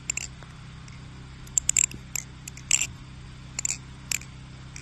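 Balisong (butterfly knife) being flipped: the handles and blade clack together in sharp metallic clicks, with a quick run of three about one and a half seconds in and single clicks spread out after.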